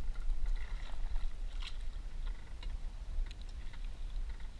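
Steady low wind rumble buffeting the microphone on the open sea, with scattered small clicks and knocks from handling on the canoe's deck; one click about a second and a half in is louder than the rest.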